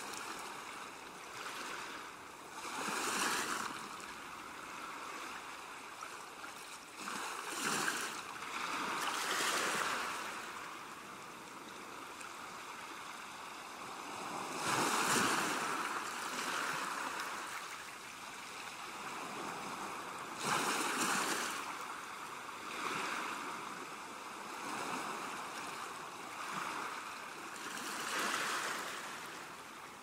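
Sea waves washing onto a shore: a steady hiss that swells and falls back as each wave breaks, every few seconds, the strongest about halfway through.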